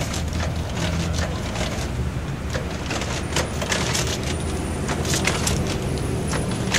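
Steady city traffic rumble, overlaid with scattered, irregular clicks and crackles of a record stylus.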